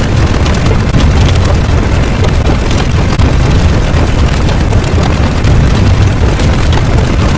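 Loud, steady rumbling roar with a crackly texture on top, a rumble-type sound effect.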